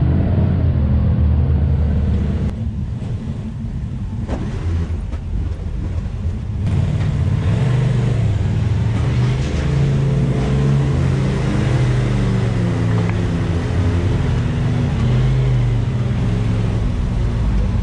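Side-by-side UTV engine running at crawling speed, its revs rising and falling as it picks over rock. It eases off for a few seconds about two and a half seconds in, then picks up again.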